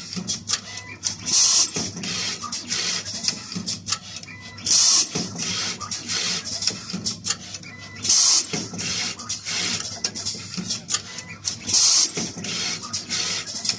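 Automatic wire soldering machine running through its cycle: constant mechanical clicking and clatter, with a short loud hiss about every three and a half seconds, four times.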